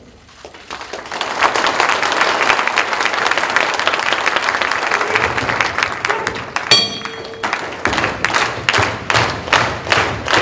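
Wrestling crowd applauding. About two-thirds of the way through, a single ring of the ring bell starts the match. The crowd then claps together in a steady rhythm of about three claps a second.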